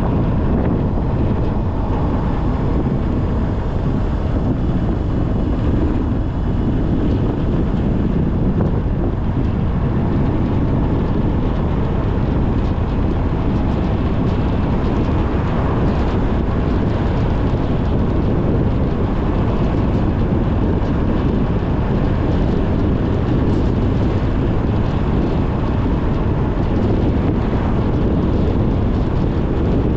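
Steady low rumble of a moving vehicle: road and wind noise that runs on without a break and is heaviest in the low end.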